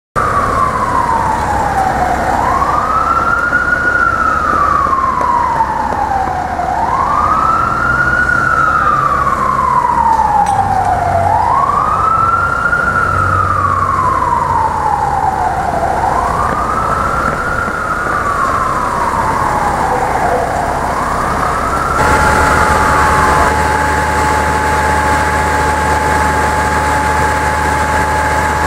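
Fire engine siren wailing, each cycle rising quickly and then falling slowly, about once every four seconds. After about 22 seconds the wail gives way to a steady whine over the truck's engine idling.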